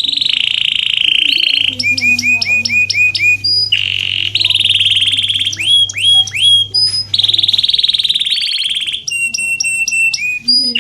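Domestic canary singing a loud, continuous song: long buzzing trills alternate with fast runs of short, repeated notes that sweep downward.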